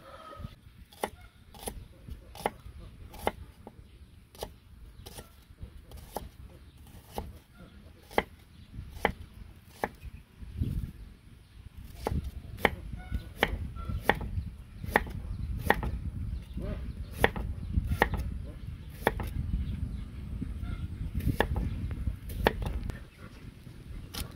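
Knife slicing shallots and other aromatics on a wooden chopping block: a steady run of sharp taps as the blade strikes the wood, about one to one and a half a second, a little quicker in the second half.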